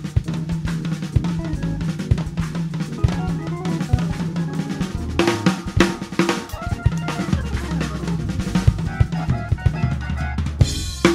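Drum kit solo: a busy run of snare, bass drum and cymbal strokes, with heavy accents about five seconds in and again near the end. Held Hammond organ chords sound underneath.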